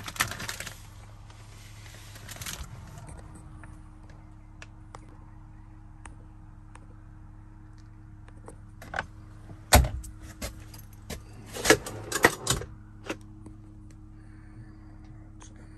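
Fabric rustling, then a cluster of sharp knocks and clattering clicks from truck sleeper-cab panels and a storage compartment being handled, over a steady low hum.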